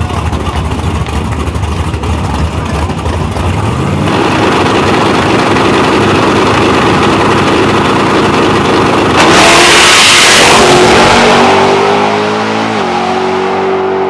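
Drag race car engines running loud, rising in pitch a few seconds in. About nine seconds in a loud rush of noise lasting about two seconds, followed by a steady engine note that drops in pitch near the end.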